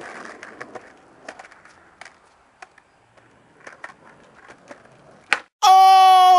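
Skateboard rolling on a concrete footpath, quiet, with scattered clicks and taps of the wheels and board, and a sharp click a little after five seconds in. It is then cut off by a loud, held electronic tone with many overtones that begins to drop in pitch at the very end.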